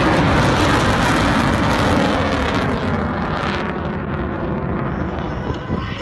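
Jet engine roar of a military jet just after a low pass, fading as the aircraft moves away; the high-pitched part of the roar dies away over the last couple of seconds.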